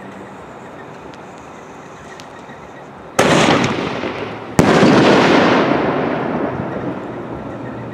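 Pro Fireworks Hammer Shell, a consumer aerial firework shell, fired from its mortar tube: a loud launch boom about three seconds in, then about a second and a half later the shell bursts with a sharp, louder bang whose echo rolls away over the next few seconds.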